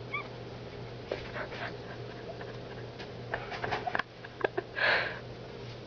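A sleeping dog gives a short, high whimper, followed by scattered soft clicks and one breathy huff near the end, over a steady low hum.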